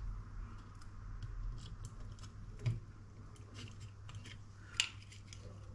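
Small, scattered clicks and taps of a screwdriver and tiny plastic model-kit parts and screws being handled on a cutting mat, with two sharper clicks, one a little under three seconds in and one near five seconds.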